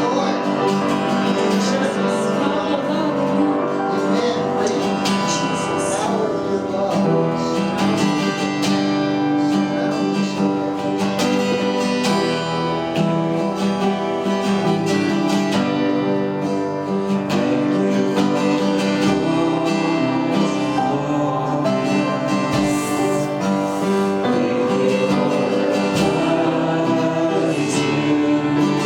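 Worship music: strummed acoustic guitar with singing.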